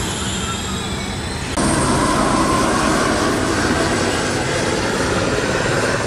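High electric whine of a first-generation Formula E race car (Spark-Renault SRT_01E), several high tones gliding together. About one and a half seconds in, it cuts off abruptly to louder, steady trackside noise with a faint tone in it.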